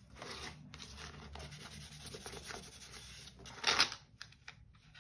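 A cloth rubbing along the glued edge of black cardstock, wiping off excess glue. There is a brief louder scrape about four seconds in.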